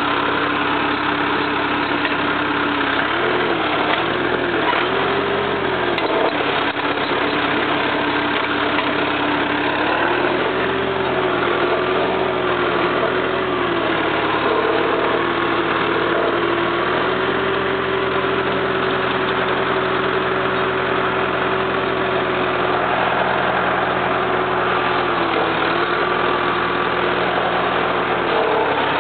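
Four-cylinder Perkins diesel engine of a Jacobsen mower running steadily, its speed dipping and rising a few times.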